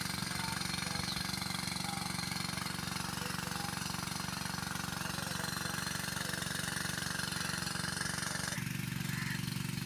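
An engine running steadily at constant speed, a low even hum that shifts tone suddenly near the end.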